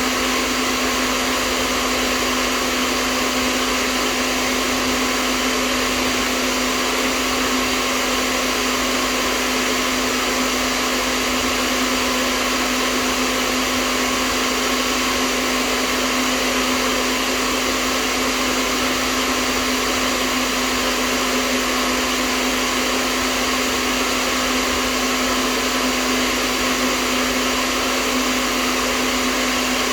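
Hair dryer running continuously: a steady rush of air over a constant motor hum, unchanging in pitch and level.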